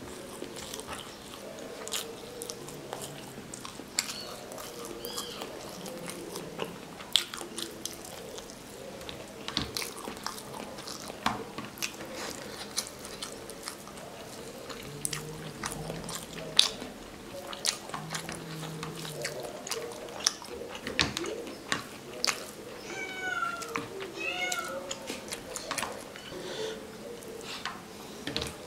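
Close-miked eating by hand: fingers squishing and scooping pulao rice and curry, then chewing with wet lip smacks and mouth clicks. Around 23 seconds in, a few short high-pitched calls rise and fall.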